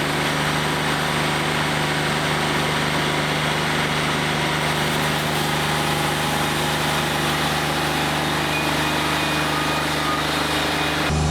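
Wood-Mizer LT40 Wide diesel sawmill working: a steady diesel engine drone under a dense hiss as the band blade saws through a white pine log. Near the end the hiss cuts off suddenly and the engine runs on.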